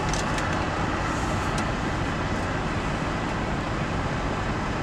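Steady rumble of idling diesel semi-truck engines heard from inside a truck cab, with a few faint clicks in the first couple of seconds.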